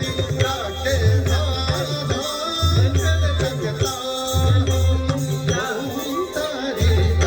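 Dance music: a melody over a deep, pulsing low drum beat with rattling percussion.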